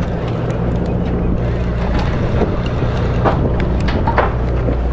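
Sport fishing boat's engine running at a steady low hum, with wind on the microphone and water noise, and a few brief sharp knocks about halfway through.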